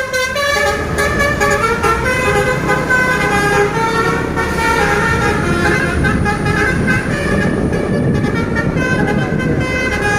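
A bus's Basuri telolet horn, a multi-tone musical horn, playing a run of quickly changing notes like a short tune, over a steady low rumble.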